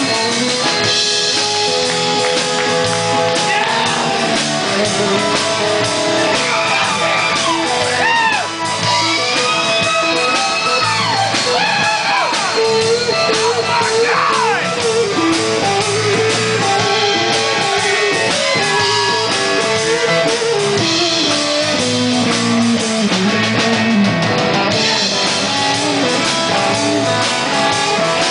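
Live rock band in an instrumental break: an electric guitar plays a lead line full of string bends over bass and drums, with a falling run a little before the end.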